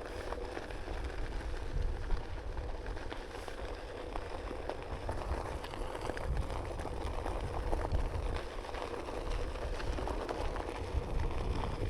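Onewheel ride: steady rumble of the tyre rolling on pavement mixed with wind buffeting the microphone, with a faint steady hum underneath.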